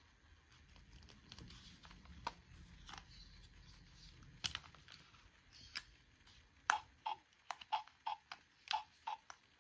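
Light clicks and taps of hard plastic toy pieces being handled. Near the end they come faster and more regularly, about three a second, each with a short ring.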